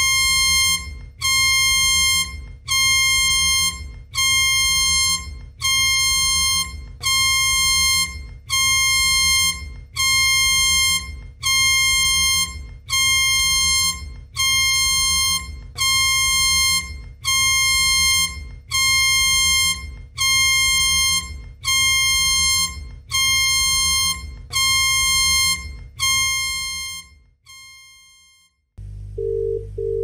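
Emergency alert alarm tone presented as the Bahamas' EAS alarm: a buzzy electronic beep repeating about once a second, each beep nearly a second long with a low rumble beneath it, trailing off near the end. A different, lower alarm tone starts just before the end.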